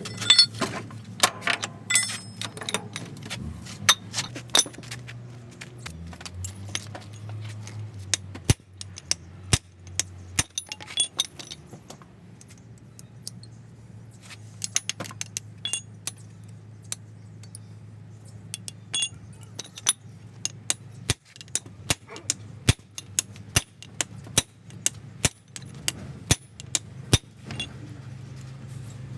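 Metal tools and parts clinking and tapping against each other in many sharp, ringing strikes, coming in a quicker, fairly regular run near the end. A steady low hum runs underneath and drops in pitch about six seconds in.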